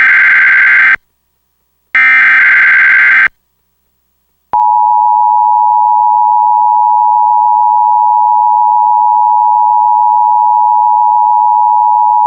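EAS SAME header: two bursts of warbling digital data tones, each about a second long. About four and a half seconds in, the steady two-tone EAS attention signal begins and holds, marking the start of a Required Monthly Test carried on cable TV.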